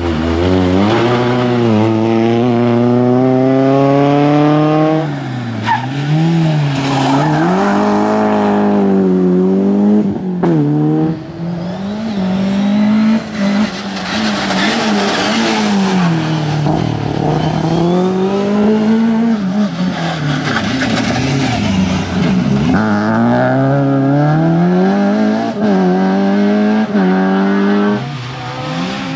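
Rally car engines driven hard, one car after another. Each engine note climbs steeply and drops back in steps as the car shifts up. Between the climbs it falls and rises again as the throttle is lifted and reapplied.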